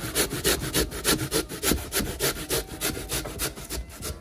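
Sweet potato being rasped by hand on a stainless steel box grater, in quick, even scraping strokes of about four or five a second. The strokes grow a little softer toward the end.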